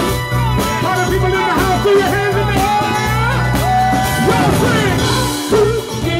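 Live band playing a dance song, with drums and bass guitar under singing that holds one long note about four seconds in.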